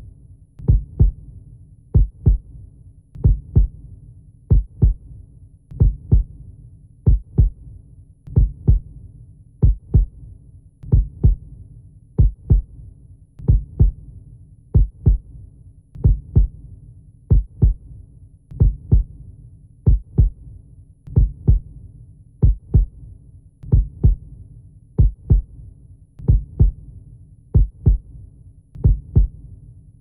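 Slow, steady heartbeat: low double thumps (lub-dub) repeating about every 1.3 seconds, over a faint low hum.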